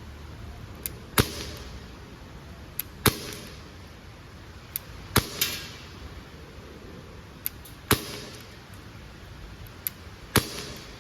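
PT92 CO2 4.5 mm steel BB pistol firing five shots, roughly one every two to two and a half seconds. Each shot is a quiet, sharp pop, and a faint click comes just before it.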